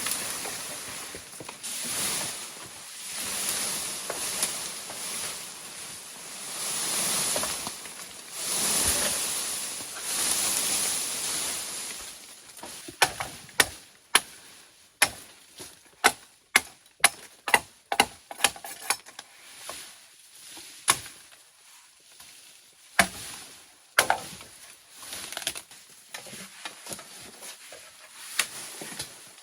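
Hand work: long rasping strokes every second or two, then a run of sharp chopping knocks, about two a second, thinning out to a few scattered knocks near the end.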